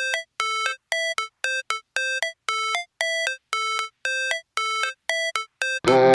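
Background music: a ringtone-like electronic melody of short bell-like notes, about two a second, with a full beat and bass coming in near the end.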